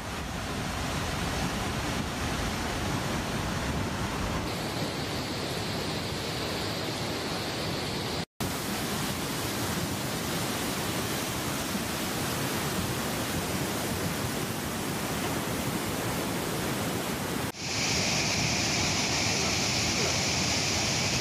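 Fast, violent floodwater rushing: a steady roar of muddy torrent churning through streets and a channel. It drops out for an instant about eight seconds in and takes on a hissier edge near the end.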